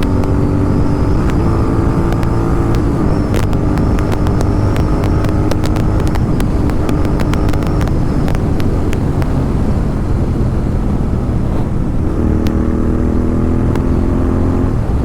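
Royal Enfield Continental GT 650's parallel-twin engine running through a loud aftermarket Red Rooster exhaust while riding. The engine note drops slightly as the throttle is eased, then a run of sharp exhaust crackles and pops follows for several seconds. The steady engine note comes back near the end, over a constant low wind rumble.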